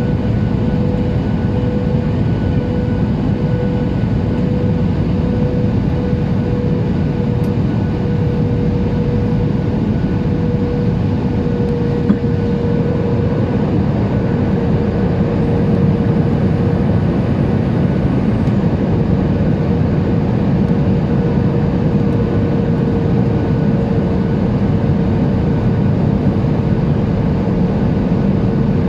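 Boeing 737-800 cabin noise in flight: a steady roar of airflow and its CFM56-7B engines, with a steady droning tone that sinks slightly in pitch about halfway through. One faint click near the middle.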